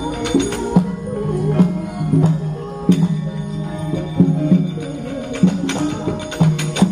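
Javanese gamelan ensemble playing with sharp, clattering percussive strikes at irregular intervals. The strikes are typical of the dalang's keprak metal plates and cempala knocks on the puppet chest that punctuate a puppet's movements.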